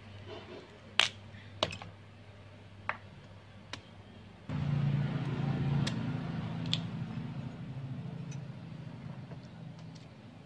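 A knife cutting through firm, ripe pumpkin held in the hand, giving four sharp crisp clicks in the first four seconds. About four and a half seconds in, a loud low hum comes in suddenly and slowly fades, louder than the cutting.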